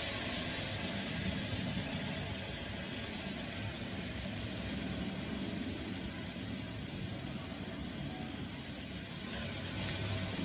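Turkey berries, onion and tomato sizzling in hot oil in a pressure cooker as they are sautéed: a steady hiss.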